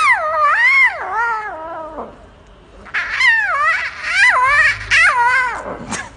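Lion cub trying to roar, producing high, meow-like calls. One long wavering call that falls in pitch comes first, then after a short pause a run of several shorter calls.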